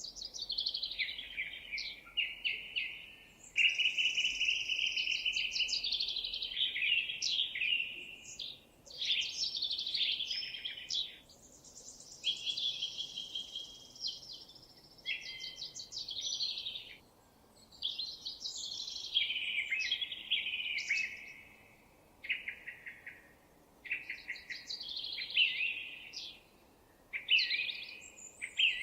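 Songbird song: a continuous run of varied, quick chirping and warbling phrases, each a few seconds long with brief pauses between them.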